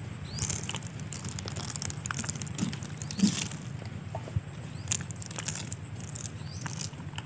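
Grain shaken from a small plastic bottle, pattering onto cardboard in scattered small clicks over a steady low background hum.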